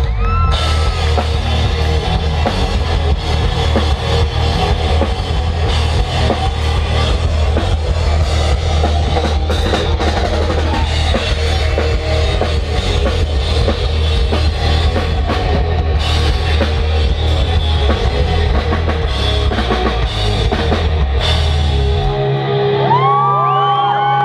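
Live amplified rock band playing, with drum kit and cymbals driving a loud, steady beat. About two seconds before the end, the bass and drums stop and rising-and-falling whoops take over.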